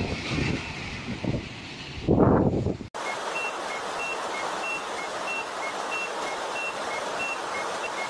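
Surf breaking on rocks, a rumbling wash of water with a big surge about two seconds in. It cuts off abruptly and is followed by a steady hiss with an electronic two-tone beeping, a higher and a lower beep alternating about every 0.6 seconds.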